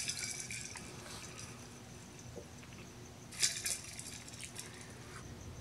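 A drink sipped through a plastic straw from a glass mason jar: a crackly slurp at the start that fades within about a second, then a second, shorter slurp about three and a half seconds in.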